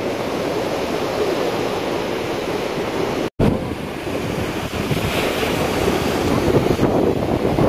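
Sea waves surging and breaking on rocks, with wind buffeting the microphone; the sound cuts out for an instant about a third of the way in.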